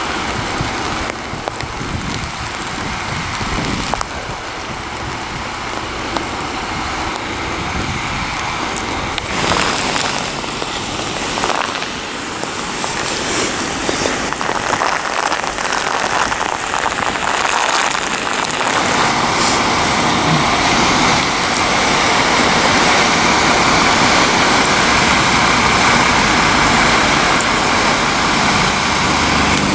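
Rain falling, with a fire engine's diesel engine running; the engine noise grows louder from about twenty seconds in, with a Dennis Sabre fire engine close by.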